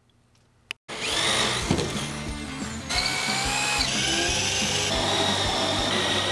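Corded drill with a hole saw boring through wood framing, starting about a second in after near silence, its whine shifting in pitch a few times, with background rock music underneath.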